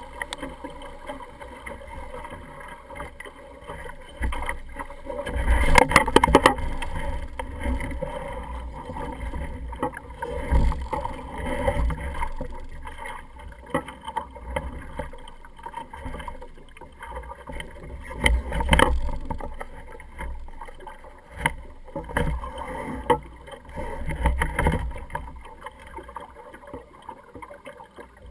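Water slapping and sloshing against the hull of a small sailing dinghy under way, with wind buffeting the microphone. Several sharp knocks come through, the loudest about six seconds in and again near nineteen seconds.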